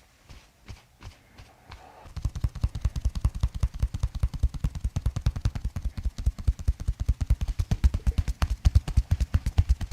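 Handheld percussion massager thumping on the body, at first in slow taps about twice a second, then from about two seconds in a fast steady pulsing of about ten beats a second.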